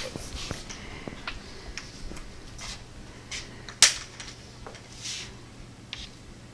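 Chalk tapping and scratching on a chalkboard as a wave is drawn: scattered light ticks, with one sharper click about four seconds in, over a faint steady hum.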